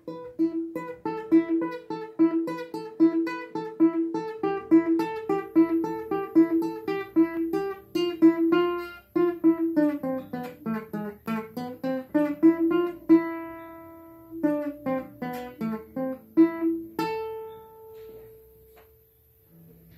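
Small nylon-string guitar played note by note: a steady run of plucked notes, about two or three a second, with the melody moving up and down. About seventeen seconds in it ends on a held note that rings out and fades.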